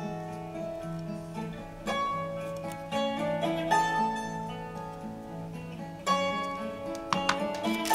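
Background instrumental music with a plucked guitar melody.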